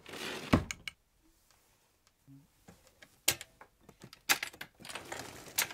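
Small household handling noises: a brief scraping rustle at the start, then a few sharp clicks and knocks of hooks and a wire pantry basket being moved on a wooden shelf.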